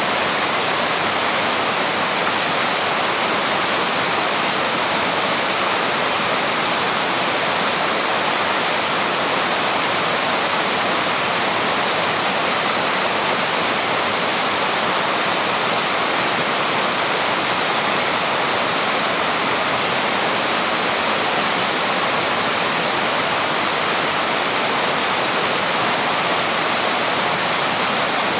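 Waterfall rushing: a steady, loud, unbroken hiss of falling water.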